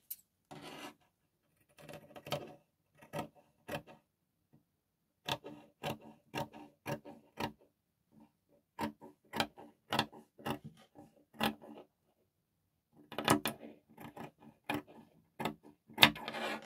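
Fabric scissors snipping through folded layers of Ankara print cotton and satin. The crisp snips come in irregular runs with a couple of short pauses.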